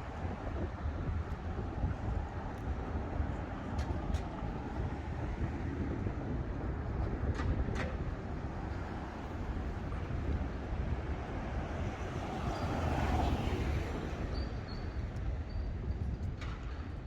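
City street traffic: cars running past with a steady low rumble, one passing louder about twelve to fourteen seconds in.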